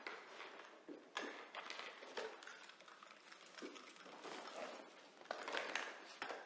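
Scrubbing an old stain on a fabric rug by hand: irregular rubbing strokes, some in quick runs of two or three, with short pauses between.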